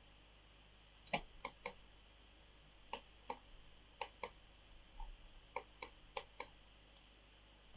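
Faint, irregular clicking of a computer mouse and keyboard, a dozen or so short clicks, many in quick pairs, starting about a second in.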